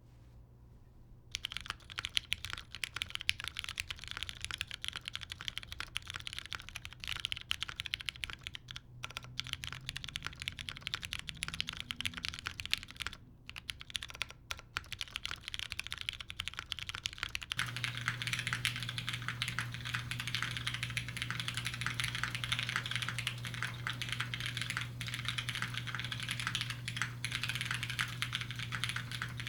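Continuous typing on a mechanical keyboard with lubed, tactile Cherry MX Brown switches in an aluminium-plate, gasket-mounted board, fast irregular key clacks starting about a second in. About two-thirds of the way through, the sound changes as the recording switches to the camera's microphone, and a steady low hum appears under the clacks.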